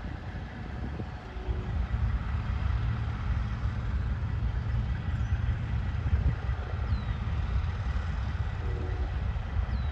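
Heavy-haul truck diesel engines running with a steady low rumble while hauling a super-load at a crawl, growing louder about two seconds in.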